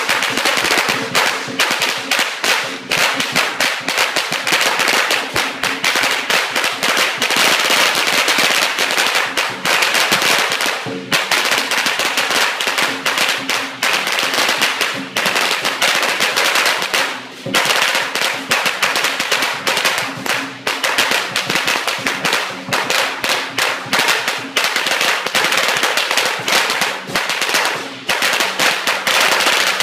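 A long string of Chinese firecrackers burning down: a loud, continuous rapid-fire crackle of small bangs, dipping briefly twice.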